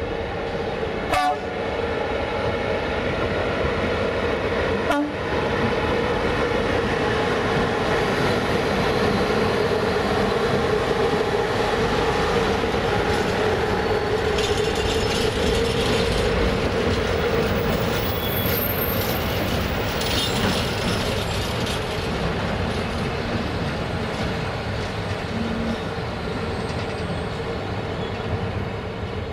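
Container freight train hauled by an LE 5100 kW electric locomotive rolling past at close range: a continuous rumble of steel wheels on rails with some clickety-clack as flat wagons loaded with shipping containers go by. Two sharp knocks come about one and five seconds in, and a steady tone rides over the rolling noise through the middle of the passage.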